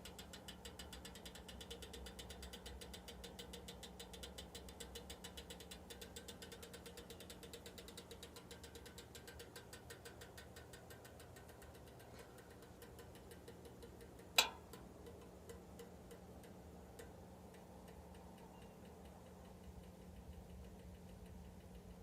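A 嘉儀 electric heater making its abnormal noise: a fast, even ticking over a steady low hum, fading out in the second half. One sharp click about two-thirds of the way through.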